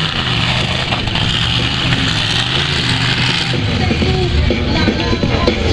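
Monster truck engine running as the truck comes down over the crushed cars and drives off across the grass. After about three and a half seconds, music or voices over the public address come in on top.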